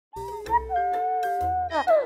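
Jingle-style intro music: a long held note over a bass line, then a quick downward slide in pitch near the end.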